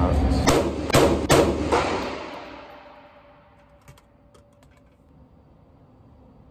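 Indoor-range target carrier motor running and fading away as it runs the paper target back downrange, with three sharp knocks in the first second and a half. A few faint ticks follow around four to five seconds in.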